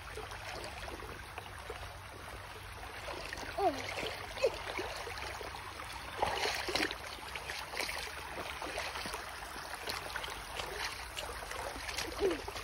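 Shallow, rocky creek running steadily over stones, with a few louder splashes of feet wading through the knee-deep water.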